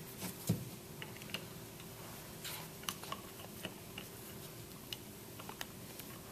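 Light clicks and taps of small pump parts (check valves and fittings) being handled and set down on a bench, with one louder knock about half a second in.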